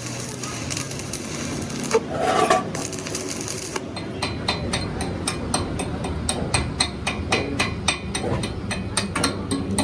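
Workshop metalwork noise on a truck axle housing: a hissing stretch, a brief louder clatter, then rapid sharp knocks, about three or four a second, from about four seconds in.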